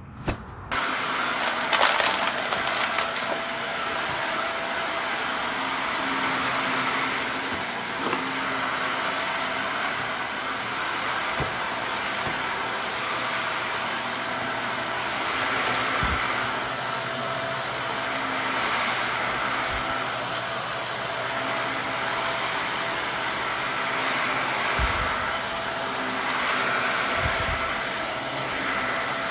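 Upright vacuum cleaner running steadily on carpet: a constant rush of air with a thin motor whine, with a few dull knocks as it is moved.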